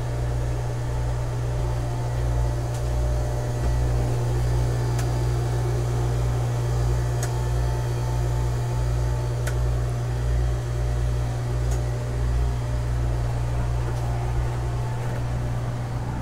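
Steady hum of machinery in a yacht's engine room: a constant low drone with a slow pulsing throb underneath.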